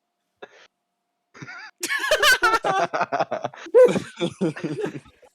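Laughter: after a quiet start, a loud burst of laughing begins about two seconds in, high at first and then breaking into quick repeated pulses.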